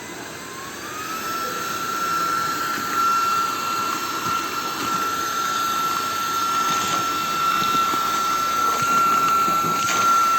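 Cordless handheld vacuum cleaner running: its motor whine climbs in pitch in the first second or so, then holds at a steady high whine over the rush of air.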